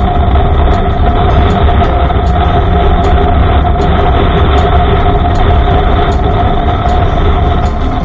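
Honda Africa Twin motorcycle cruising at a steady speed, its engine running under heavy wind rush and road noise on the bike-mounted camera.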